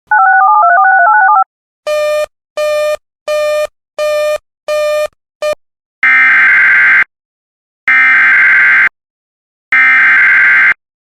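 A fast two-note electronic warble, then six short beeps, then three loud one-second bursts of EAS SAME header data. The header is the harsh digital screech of modem-like tones that opens an Emergency Alert System message, sent three times with pauses between.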